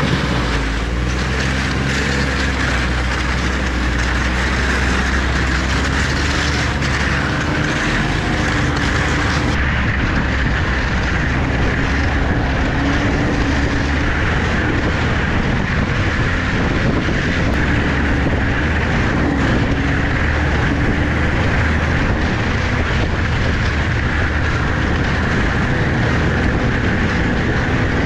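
A motor vehicle on the move: the engine runs under a steady, loud rumble of travel noise, its low hum turning rougher and noisier about eight seconds in.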